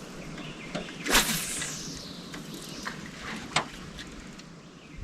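A fishing cast: a sudden swish about a second in that falls in pitch over roughly a second as the line pays out. One short sharp click follows about two and a half seconds later.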